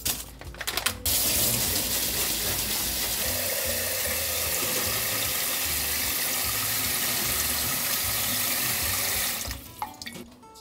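Kitchen faucet running into a stainless steel pot in the sink, rinsing dried kelp and mushroom slices: the water comes on about a second in with a steady rush and is shut off near the end. A few light handling clicks come before the water.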